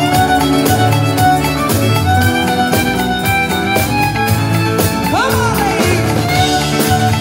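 Live band playing, with a fiddle carrying the tune over a steady drum beat and bass; a quick swooping note rises and falls about five seconds in.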